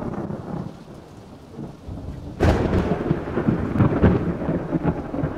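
Thunder sound effect: a low rolling rumble, then a sudden sharp thunderclap about two and a half seconds in that crackles and rumbles on heavily.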